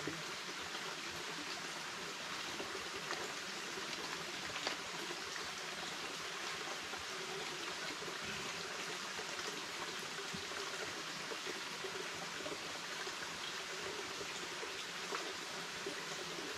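Shallow rocky forest stream trickling steadily over stones, with a few faint clicks among it.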